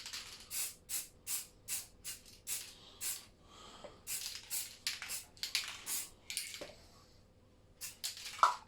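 Aerosol spray-paint can (cheap automotive matte silver) sprayed in quick short spritzes, a hiss about two or three times a second, with a short pause near the end.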